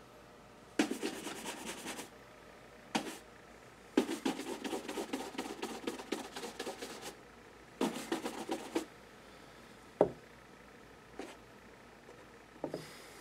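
Horsehair shoe brush buffing dried wax polish on a leather shoe in brisk, rapid back-and-forth strokes, in three or four spells with short pauses; the friction is what melts the wax into a shine. A single sharp knock comes about ten seconds in.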